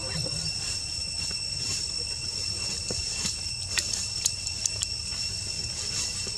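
Steady high-pitched insect drone over a low rumble, with a few sharp clicks a little after halfway.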